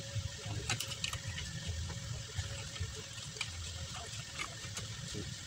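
Scattered light metal clicks and taps as a drum brake shoe and its springs are worked into place on the backing plate of a Kia Bongo's brake, over a steady background hiss and low rumble.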